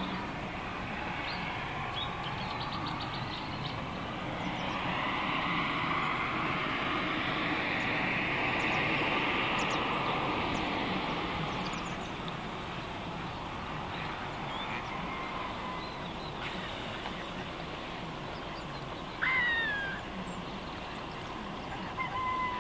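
Distant road traffic making a steady hum that swells and eases in the middle, under waterfowl calling on the lake: a sharp call falling in pitch about three-quarters of the way through, and another call near the end.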